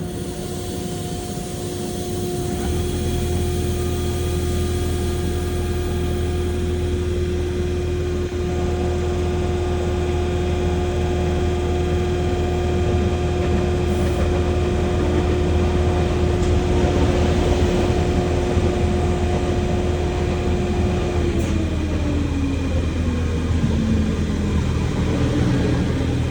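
An SNCF Z20500 (Z2N) electric train giving off a loud, steady whine that sounds like a jet airliner such as an A320 taking off. A low hum joins about three seconds in. Near the end the whine's pitch falls away steadily.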